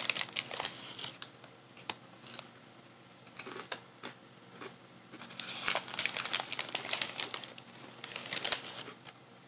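Food packaging crinkling as it is handled, in two bouts: one in the first second and a longer one from about halfway to near the end, with a few scattered crackles between them.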